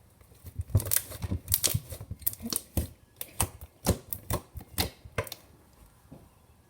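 Fluffy slime being squeezed and stretched by hand, giving a run of sharp, irregular clicks and pops as pockets of trapped air burst.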